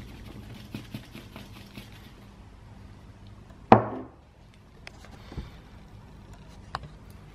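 Dry home-made tooth powder being stirred by hand: light scraping and ticking for the first couple of seconds, then one sharp knock a little under four seconds in, followed by a few faint clicks.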